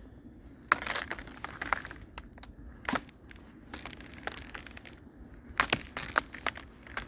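Footsteps on a frozen surface, the ice crust crunching and crackling sharply under each step. The crackles come in clusters, with a quieter gap in the middle.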